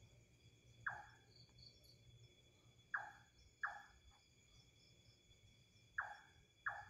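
Short, sharp calls from an unseen animal that the recordist takes for a mysterious bird: five in all, one alone and then two pairs. Insects trill steadily behind them.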